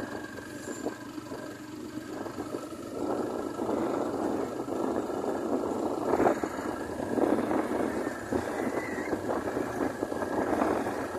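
A vehicle engine running on the move, under an uneven rushing noise that swells and dips.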